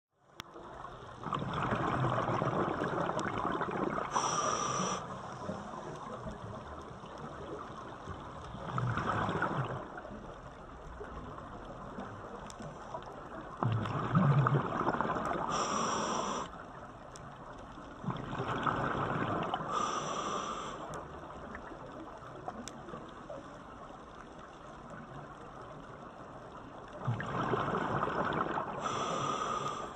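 Scuba diver breathing through a regulator underwater: five long breaths several seconds apart, each a stretch of bubbling rush with a brief sharper hiss, over a steady low water hiss.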